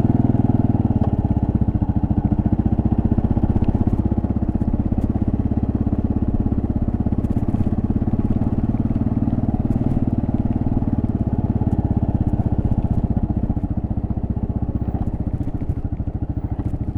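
2024 Kawasaki KLR650 S's 652 cc single-cylinder engine running at a steady cruise on a dirt road, with a few faint clicks from gravel.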